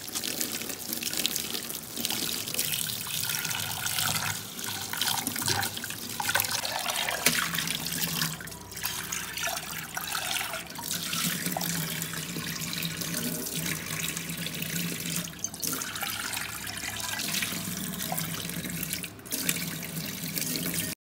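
Kitchen tap running into a saucepan in a stainless steel sink, the water splashing in the pan as it is rinsed out.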